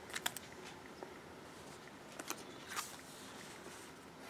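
Faint taps and rustles of cardstock and paper as a handmade notepad holder is handled and opened: a few short soft clicks spread through, over a quiet background.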